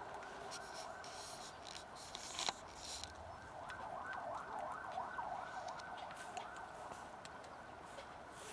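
An emergency-vehicle siren sounding faintly in the background, switching to a fast rising-and-falling yelp for a few seconds in the middle. Scattered small clicks of cats eating dry kibble, with one sharper click about two and a half seconds in.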